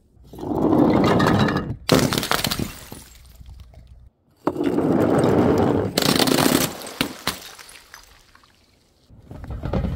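Glass bottles shattering twice, about two and six seconds in, each crash followed by a short tail of tinkling fragments. Each crash comes right after a loud rushing sound lasting about a second.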